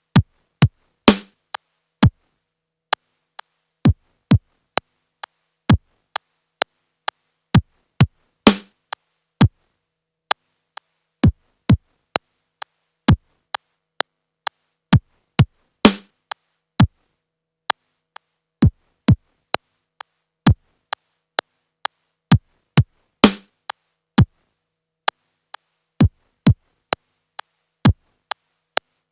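Yamaha PTX8 drum machine playing a sequenced pattern of short, dry drum hits through an Akai EX70C compressor. Every seven seconds or so a longer, louder hit with a falling pitch comes in.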